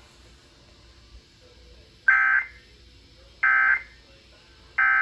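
Emergency Alert System end-of-message (EOM) data tones: three short, identical buzzy bursts of digital data, each under half a second and about a second and a half apart, starting about two seconds in. They signal the end of the broadcast alert.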